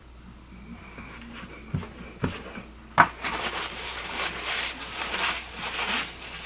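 Eyeshadow palette being handled: a couple of light knocks, a sharp click, then about three seconds of scratchy rubbing.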